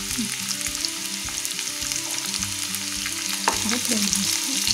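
Boiled elephant foot yam pieces and green chillies sizzling and crackling in hot oil in a non-stick kadai, stirred with a wooden spatula.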